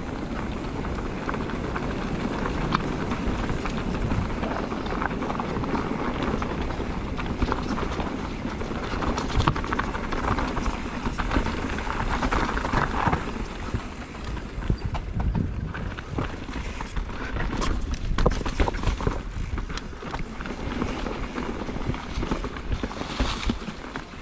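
Mountain bike riding fast over a rough dirt trail: tyres crunching and knocking over rocks and roots, with the chain and frame rattling in a dense run of irregular clicks.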